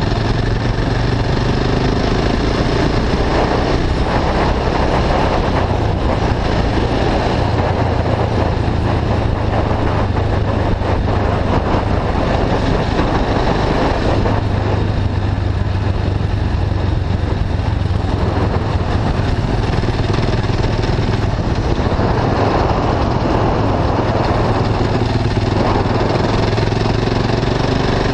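KTM 690 Duke IV's single-cylinder engine, breathing through an Akrapovic slip-on exhaust with the catalytic converter bypassed, running steadily at a moderate cruise. Wind noise over the microphone rises and falls over the engine sound.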